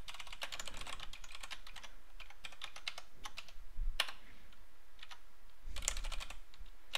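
Typing on a computer keyboard: key clicks in quick runs with short pauses between, and one sharper keystroke about four seconds in.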